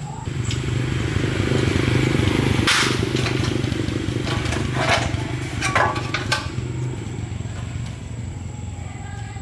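A small engine running steadily, with several sharp knocks and clanks of metal in the middle.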